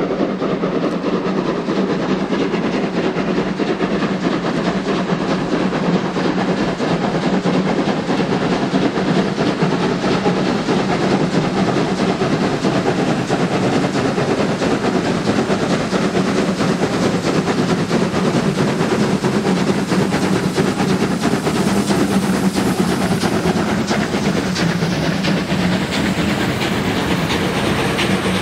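Battery-powered toy trains running on plastic track: a steady electric-motor whirr with rapid clicking of the wheels over the track.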